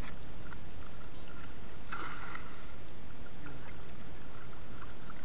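Water splashing and sloshing as a cast net is pulled in through shallow water, over a steady low rumble; a louder splash comes about two seconds in.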